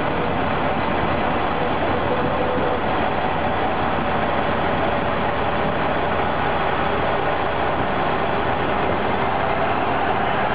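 Steady running noise of a 1950s Brossel-built SNCB railcar (ES401), heard right at its bogie: wheels rolling on the rails under way, an even, dense rumble with no separate rail-joint knocks.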